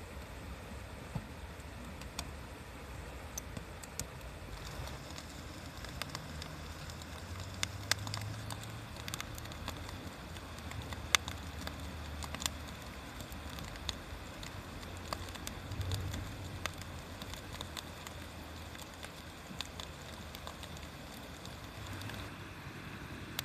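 Wood burning in a campfire, crackling with irregular sharp pops, one louder snap about eleven seconds in, over a steady low rumble.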